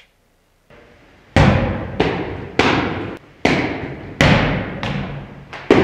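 A string of about six heavy hammer blows, each one ringing out and fading over about half a second, beginning about a second and a half in.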